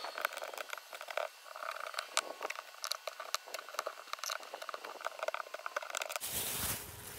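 A hand scraper scraping old silicone sealant off a school bus's roof around the stove flue: a run of irregular scrapes and clicks. About six seconds in it gives way to a sudden rush of noise.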